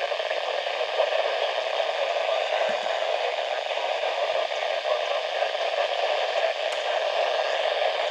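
NOAA Weather Radio receiver putting out steady static hiss with no broadcast coming through, the sound of a weather station too weak to receive clearly.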